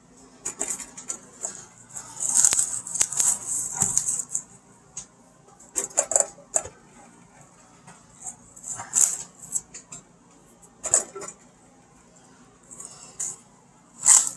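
Apples being put into a metal mixing bowl on a dial kitchen scale, knocking against the bowl and each other. They come in several separate bursts of clatter with quiet gaps between.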